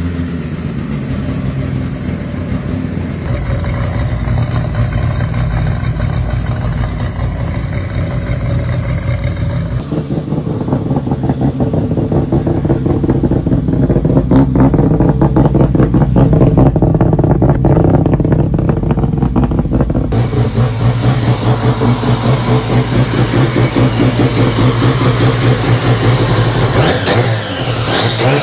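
Mazda 12A two-rotor rotary engines running loud and choppy, in several clips cut together, with a lumpy, pulsing idle and a rev that rises and falls near the end.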